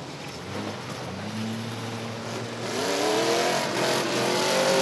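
Car engines running and revving on a speedway track: a steady engine note from about a second in, then an engine revving up with rising pitch, louder from about three seconds in.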